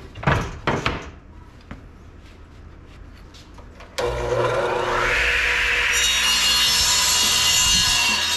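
Radial arm saw switched on about halfway through, its motor spinning up with a rising whine, then the blade cutting through a 1x4 board with a steady, loud, high-pitched noise. A few knocks in the first second.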